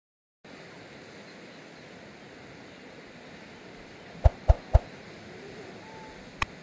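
A moment of silence, then a steady outdoor rushing noise. About four seconds in come three sharp clicks in quick succession, and a short faint whistle follows near the end.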